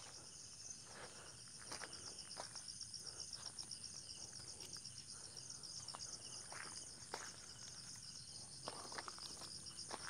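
Steady chorus of forest insects, a continuous high shrill with fast pulsing chirps beneath it, overlaid by scattered crunches and snaps of footsteps on leaf litter and dry sticks being gathered for firewood.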